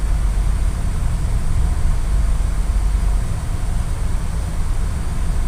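Steady low rumble with an even hiss over it, the running noise of a moving vehicle, with no distinct events.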